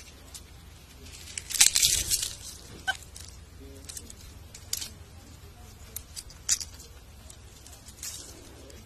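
A handful of dry leaves being crushed and crumpled in a hand, in short irregular crackles. The longest and loudest crunching comes a couple of seconds in, and single crackles follow every second or two.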